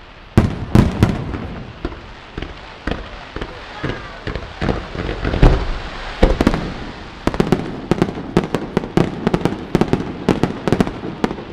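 Aerial firework shells bursting: a loud bang about half a second in, then a string of sharp bangs and reports that thickens into a rapid, dense volley over the second half.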